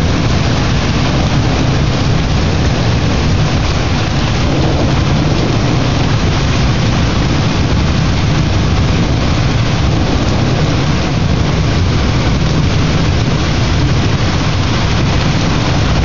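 Heavy thunderstorm rain falling steadily, with a constant deep rumble underneath.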